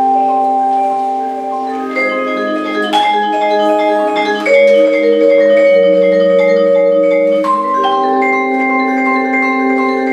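Instrumental music: sharply struck notes that ring on over held chords, a new note or chord about every second.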